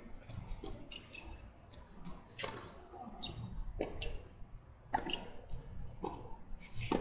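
Tennis balls struck by rackets and bouncing on a hard court during a doubles rally: a string of sharp pops about a second or so apart, with fainter ticks between them.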